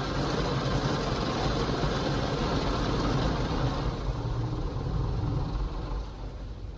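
Automatic touch car wash running, heard from inside the car: a steady noisy rumble of machinery and spray over the idling engine, easing off near the end.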